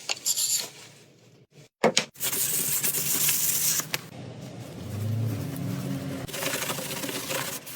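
Scraping and rubbing on wood in short, abruptly cut stretches, with a low motor hum about five seconds in.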